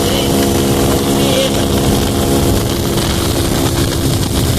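Honda Pop 110 motorcycle's small single-cylinder four-stroke engine running steadily while under way; its note holds level for the first couple of seconds, then turns less even.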